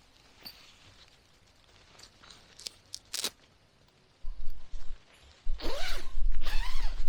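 Close handling and rustling noises: a few sharp clicks, then louder crunching and rustling with low thumps.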